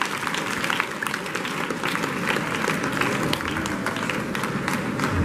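An audience applauding, with many hands clapping steadily.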